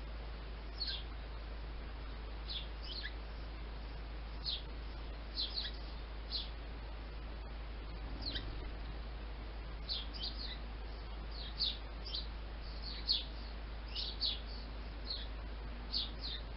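Small birds calling with short, high, downward-sweeping chirps at irregular intervals, coming more often in the second half.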